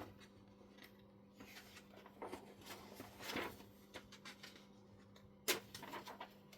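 Light clicks and rustling as small tools and parts are handled, with one sharp click about five and a half seconds in, over a faint steady hum.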